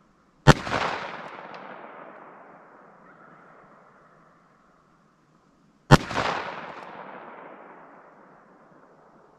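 Two shots from a Ruger Vaquero single-action revolver in .45 Colt, about five seconds apart. Each crack is followed by a long rolling echo that dies away over three to four seconds.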